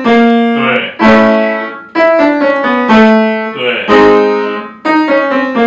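Upright piano being played with a man singing over it, a new note or chord struck about once a second and each fading before the next.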